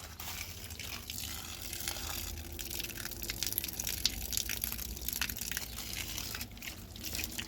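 Water running and splashing as it is drawn for drinking: a steady gush with many small splashes.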